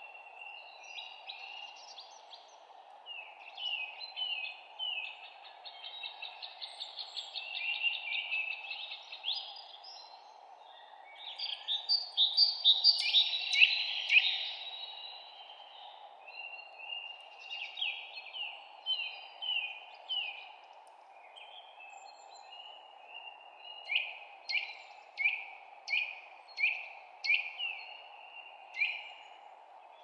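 Several songbirds chirping and singing in overlapping phrases, busiest and loudest about halfway through. Near the end comes a run of sharp, downward-sweeping chirps, about two a second, over a steady low hiss of background noise.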